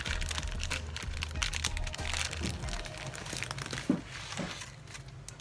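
A crinkly plastic food packet handled close by, crackling irregularly and easing off near the end.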